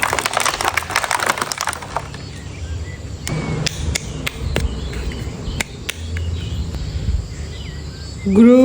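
Plastic toy packaging being handled, with a dense crackling for about two seconds and then scattered single clicks. Near the end, a loud drawn-out voice starts.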